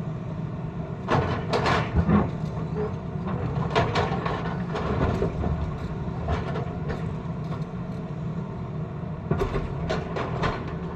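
Tata Hitachi excavator's diesel engine running steadily, with clanks and scrapes from the bucket working the road surface, loudest in a cluster about a second in and again near the end.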